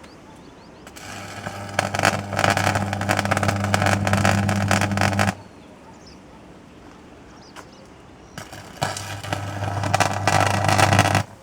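Electric welding arc from a home-made salt-water welder on AC mains, crackling over a steady low buzz. It burns twice: once for about four seconds starting a second in, and again from about nine seconds in, cutting off sharply near the end.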